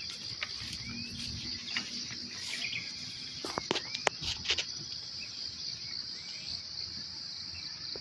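Steady high-pitched drone of an insect chorus, with a few short, sharp chirps and clicks about halfway through.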